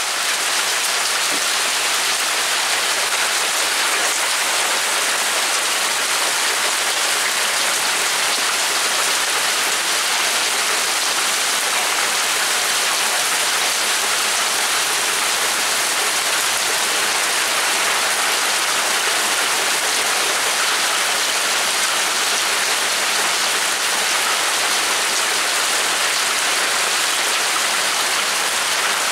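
Hail shower mixed with rain: hailstones and rain falling steadily on the yard and house, a dense, unbroken hiss that holds at one level throughout.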